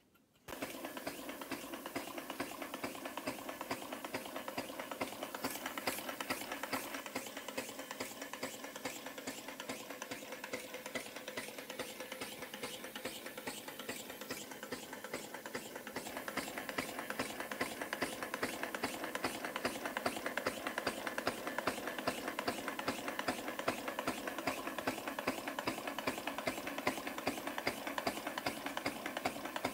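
3D-printed single-cylinder four-stroke compressed-air engine running steadily. It makes a rapid, even stream of clicks and puffs that starts about half a second in.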